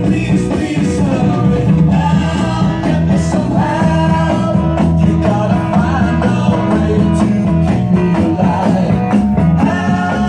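Rock-ola 460 jukebox playing a rock and roll record through its speaker: a song with a steady beat, guitar and a singing voice.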